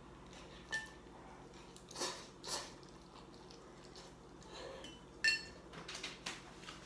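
Chopsticks clinking and tapping against ceramic bowls while eating noodles: a few scattered sharp clicks, one near the middle with a short ring.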